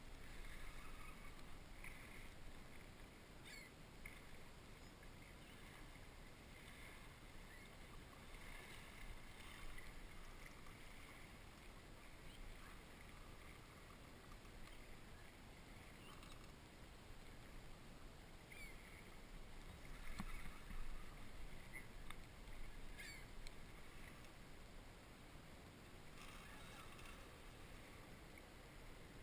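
Faint water lapping against the hull of a small boat, with a few light knocks.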